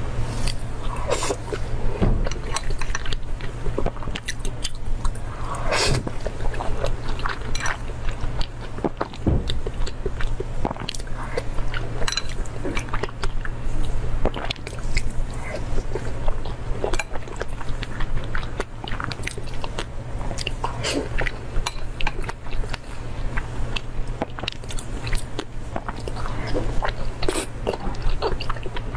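Close-miked chewing and wet mouth sounds from eating soft raw salmon sashimi rolls, with many small irregular clicks. A steady low hum runs underneath.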